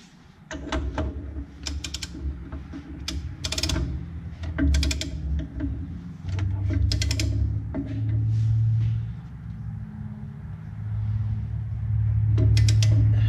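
Ratchet of a torque wrench clicking in short runs as it is worked on a disc opener hub bolt, over a steady low hum.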